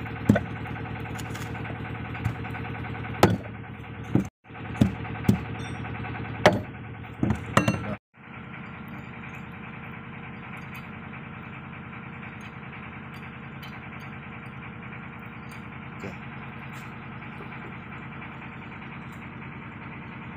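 A steady engine drone, with about six sharp knocks of a hammer on metal over the first eight seconds, then the drone alone.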